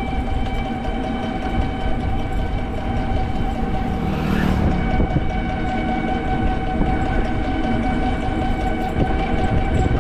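Electric motor of an e-bike whining at a steady pitch while riding, over wind noise on the microphone and road rumble. A brief hiss comes about four seconds in.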